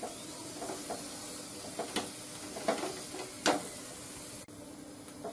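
Missi roti sizzling in desi ghee on a hot tawa, with a flat steel spatula scraping and pressing it against the pan several times; the two loudest scrapes come about two and three and a half seconds in.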